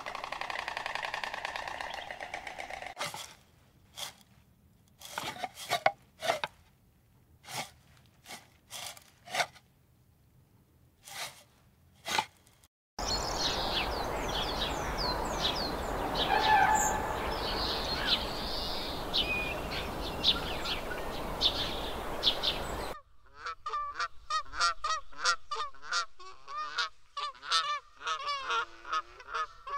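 Scattered sharp clicks and taps, then small birds chirping over a steady rushing noise for about ten seconds, then, in the last seven seconds, rapid repeated calls from waterfowl, several a second.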